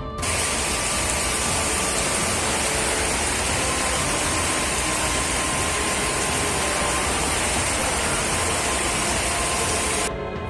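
Steady, loud rush of a windstorm, strong wind with heavy rain. It starts just after the beginning and cuts off suddenly near the end.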